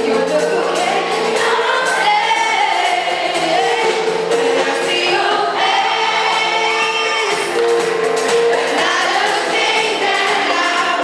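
Live band playing a song, with a group of voices singing together.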